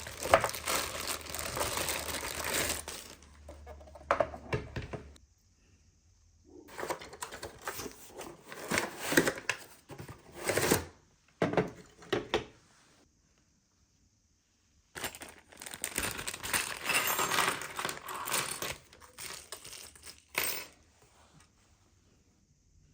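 Plastic packaging crinkling and rustling, with small hard clicks and clinks of sewing-machine accessories being handled, in three stretches with quiet pauses between.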